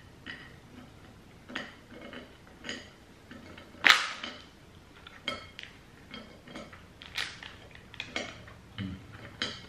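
Scattered light clicks and taps of sugar-coated fruit pastilles being pushed around a ceramic plate by fingers, with one louder, sharper crackle about four seconds in.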